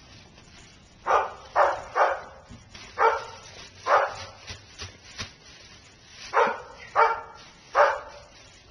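A dog barking, about eight short barks at uneven intervals.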